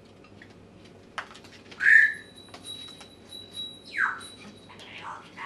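Parrot squawking twice: a short loud squawk about two seconds in, then a call that slides downward about four seconds in.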